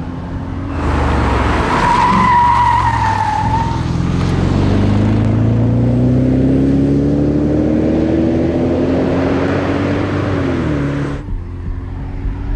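Audi RS6 C5's 4.2-litre twin-turbo V8 running under load, with a brief high squeal about two seconds in. From about four seconds in the engine note climbs steadily as the car accelerates, then drops and cuts off abruptly near the end.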